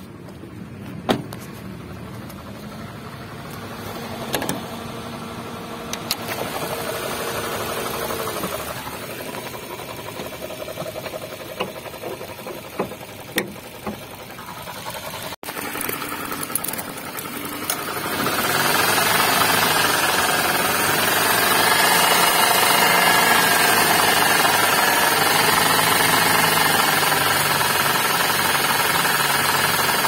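Suzuki Ignis engine idling with a rough growl from the accessory belt drive, the sign of a worn V-belt tensioner pulley bearing. The first half is quieter, with a few sharp clicks and knocks. From about two-thirds in, the engine noise is much louder and close up.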